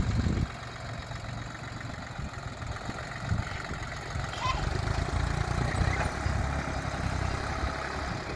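Diesel engine of a 1985 Ford compact tractor running under load as its front-loader bucket digs into the soil, the engine note swelling and easing.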